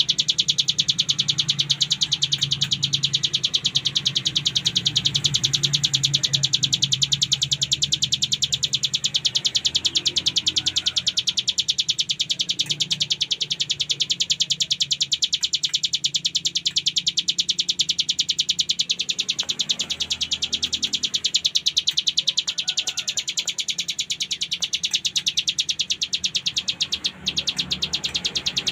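Ciblek gunung, a prinia, singing a rapid unbroken high-pitched rattle of notes: the 'ngebren' song.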